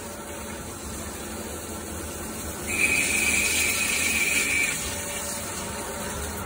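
CNC lathe turning a metal workpiece under a stream of coolant, the spindle and coolant spray running steadily. About three seconds in, a high steady whine from the cutting tool comes in louder for about two seconds, then drops away.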